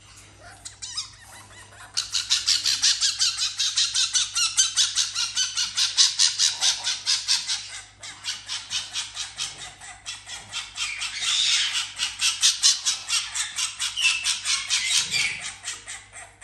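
An animal calling in a fast, shrill, harsh series of about five or six calls a second. It starts faint, turns loud about two seconds in, and dips briefly near the middle.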